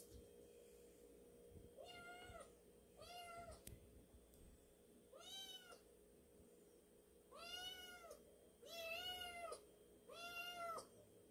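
Kitten meowing faintly and high-pitched, six short calls that each rise and fall in pitch, coming closer together in the second half.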